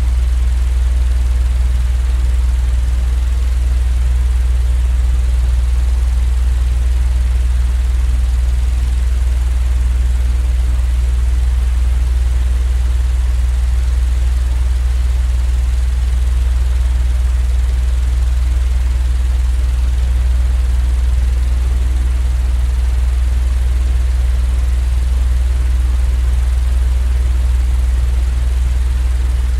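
Fan running continuously as sleep white noise: a loud, steady low hum under an even faint hiss, with no change.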